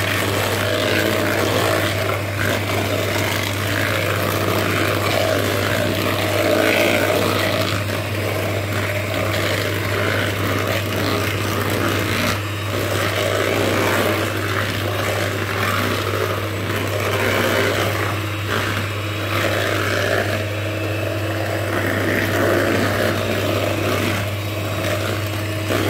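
Nikai electric hand mixer running steadily, its twin beaters whirring through a cream cheese batter in a bowl.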